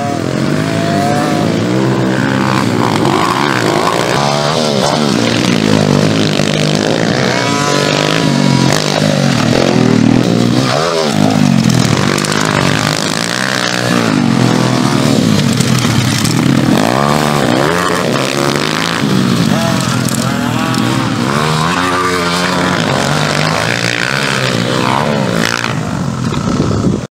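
Several pit bikes, small dirt bike engines, racing together, each revving up and dropping back over and over as they are ridden hard and shift gears, their engine notes overlapping.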